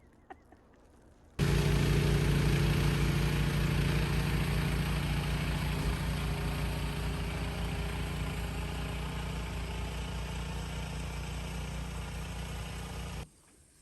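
An engine running steadily. It cuts in suddenly about a second and a half in, slowly gets quieter, and cuts off abruptly near the end.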